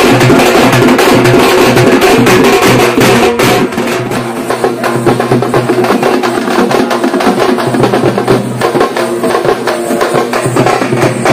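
Dappu frame drums beaten with sticks in a fast, dense rhythm of sharp strokes, over a steady low tone. The sound gets quieter and thinner about three and a half seconds in.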